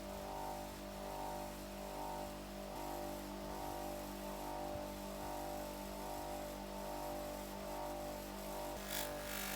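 Electric polishing machine motor running steadily, with a buzzing hum and a regular pulsing of about three beats a second.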